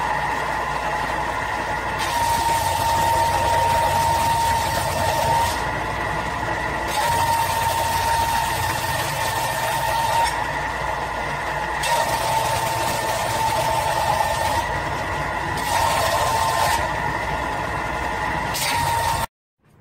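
Ryobi benchtop belt sander running with a steady whine, as a steel bar is pressed against the moving belt in about four long passes, each adding a harsh grinding noise. The sound cuts off suddenly near the end.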